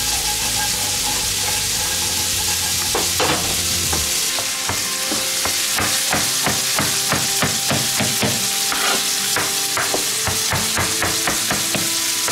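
Food frying in pans, sizzling throughout. From about four seconds in, a chef's knife chops fresh rosemary on a cutting board in rapid, even knocks, about four a second.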